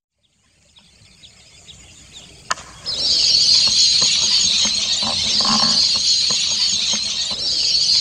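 A large flock of birds calling all together, a dense high chatter of many overlapping calls that starts about three seconds in, after a single sharp click.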